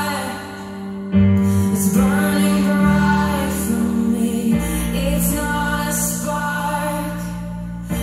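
A slow song with a singing voice over long held bass notes, played back through open-baffle hi-fi loudspeakers.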